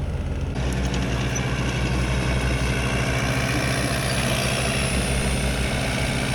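Heavy engine of a large aerial lift running steadily; about half a second in its note shifts and the sound grows fuller, as if taking on load.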